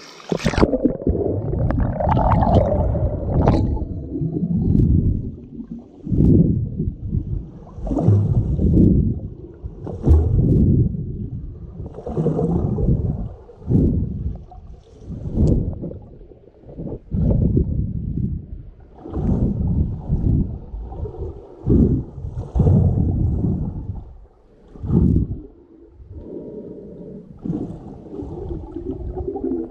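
Water churning and gurgling as heard underwater, dull and muffled, in uneven surges every second or two as a snorkeller swims and dives in a lake. The sound turns dull suddenly right at the start as the microphone goes under.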